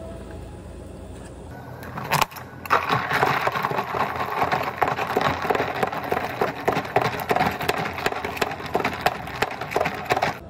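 Ice rattling and clattering inside a lidded plastic cup of iced drink as it is shaken hard by hand to mix it. A sharp click comes about two seconds in, then a dense, fast clatter that stops abruptly at the end.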